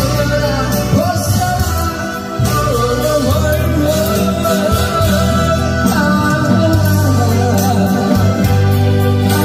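Male trot singer singing into a microphone over loud amplified accompaniment with a steady bass line, his voice wavering on held notes.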